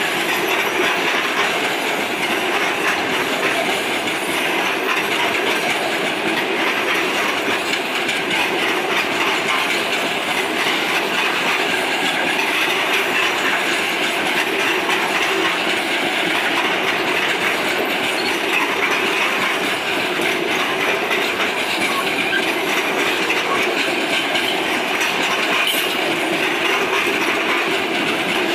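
A long loaded freight train's wagons rolling past close by: a steady, unbroken noise of steel wheels running on the rails.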